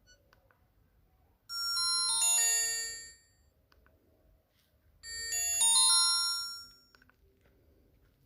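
Alcatel OT-1035A mobile phone playing a short ringtone through its speaker: a quick cascade of chiming notes falling in pitch, played twice with a pause of about two seconds between.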